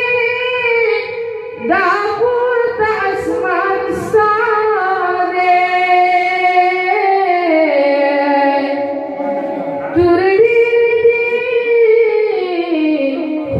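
A young man singing a naat solo through a microphone, holding long, ornamented notes that slide down in pitch in the middle.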